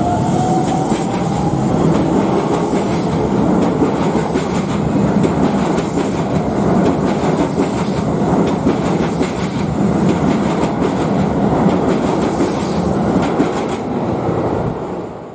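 Keikyu electric train passing close by: a steady loud rumble with the wheels clattering over the rail joints, and a rising whine near the start.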